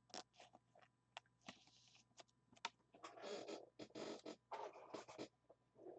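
Near silence with faint clicks and soft rustles of trading cards and plastic card holders being handled, busiest about halfway through.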